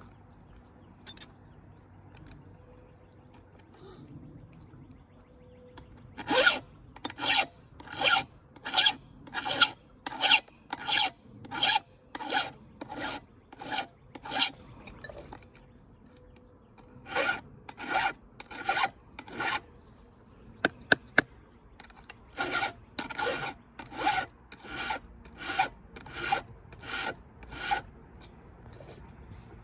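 A chainsaw chain being hand-filed with a file in a Husqvarna filing guide: two runs of even rasping strokes, about two a second, with a short pause between them.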